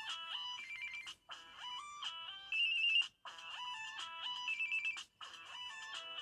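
Samsung Galaxy S2 stock ringtone playing through the phone's speaker: a short electronic melody with stepwise falling notes, repeating about every two seconds with a brief gap between phrases.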